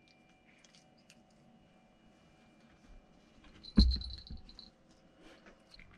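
Faint small ticks of a cat nibbling lettuce, then a single loud thump about four seconds in as the cat jumps down from the counter onto the floor, with a brief high jingle of its collar bell.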